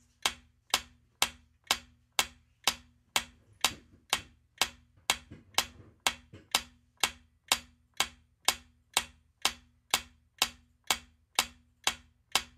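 Ticking countdown-timer sound effect: a steady clock-like tick, about two a second, counting down the answer time.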